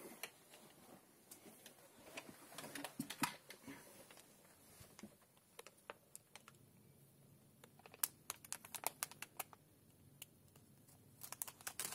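Faint, irregular clicks and crinkles of window film and a utility knife being handled while relief cuts are made at the corner of the glass, coming in short clusters with quieter gaps.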